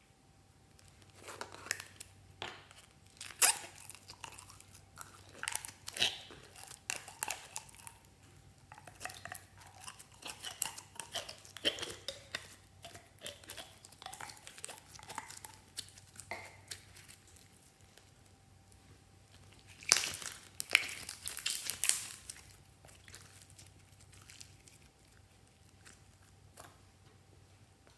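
Thick slime being squeezed, pulled and pressed by hand, giving a run of sticky crackles and pops, with a louder cluster of crackling about twenty seconds in.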